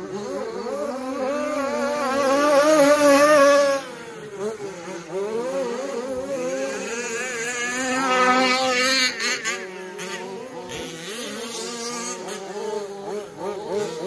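Several radio-controlled 4WD racing trucks' motors whining, their pitches rising and falling as the trucks accelerate and brake around the track. The whine is loudest as trucks pass close by in the first few seconds, drops off sharply, then a high rising whine comes again about eight seconds in.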